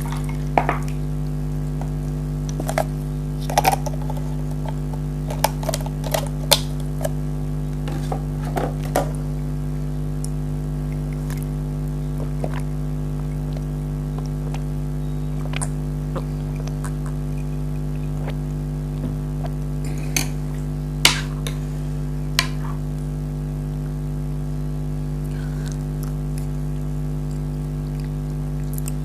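Eating sounds from a spoon and a dessert bowl: scattered short clinks and clicks of the spoon against the dish and bites of mango jelly custard, with a lull in the middle. A steady low hum underlies it all.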